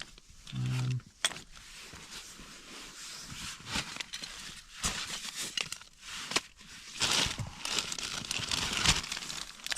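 Gear being handled at close range: light rustling and scattered clicks and knocks, getting busier and noisier near the end, with a brief low hum about half a second in.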